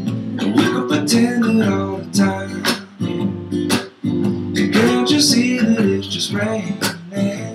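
Acoustic guitar strumming with a man singing over it, a laid-back pop song.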